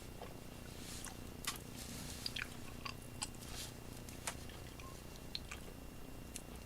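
Faint handling noises of cassette tape: scattered small clicks and crinkles of magnetic tape and the plastic cassette shell being worked by hand to get a fold out of the tape, over a low steady hum.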